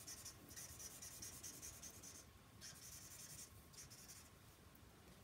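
Alcohol marker scribbling on vellum: faint, scratchy back-and-forth strokes of the marker tip, pausing briefly a few times.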